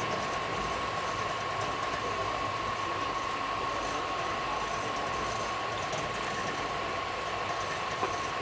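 Steady running noise of a moving passenger train heard from inside an air-conditioned coach, with a constant high-pitched hum running under it.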